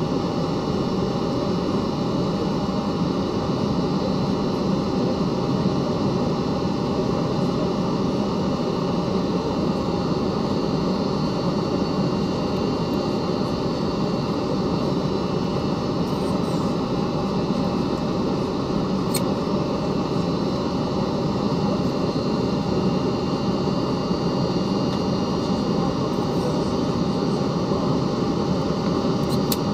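Steady cabin noise of an Ilyushin Il-96-300 airliner on descent toward landing: the even rush of air and hum of its four PS-90A turbofans, with faint steady high tones above it.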